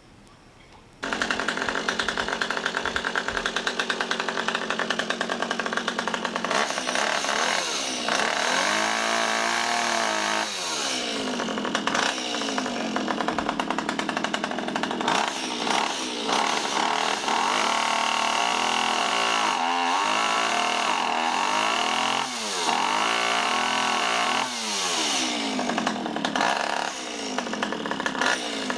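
Two-stroke chainsaw comes in suddenly about a second in and runs loudly, its pitch repeatedly dipping and swinging back up as it is revved and loaded while cutting tree wood.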